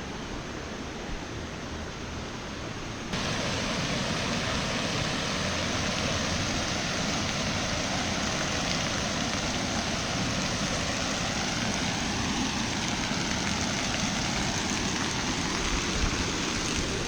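Steady outdoor rushing noise with no distinct events. It becomes suddenly louder about three seconds in.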